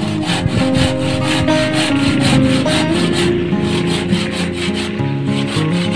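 Handsaw cutting through a wooden plank in quick, even back-and-forth strokes, over background music.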